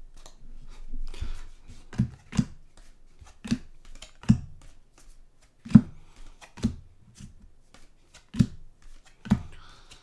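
Trading cards being flipped through one at a time, each set down with a sharp tap, about eight taps at an uneven pace over a light rustle of card stock.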